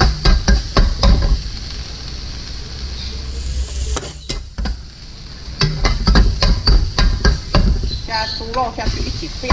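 Chopped garlic sizzling in hot oil in a wok while a spatula stirs it, scraping and knocking against the pan in quick runs of strokes at the start and again in the second half, with a quieter stretch of steady frying between.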